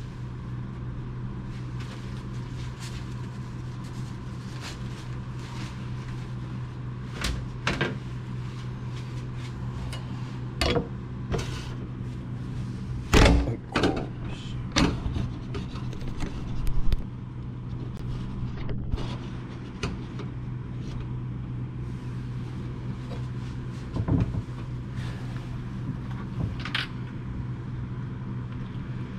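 Steady low machine hum with scattered knocks and clacks of a knife and other things being handled on a plastic cutting board, the loudest cluster about 13 seconds in.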